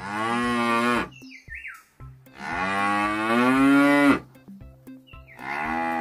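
Cows mooing: three moos, the middle one the longest and loudest, the third starting near the end. Light background music with a steady beat runs underneath.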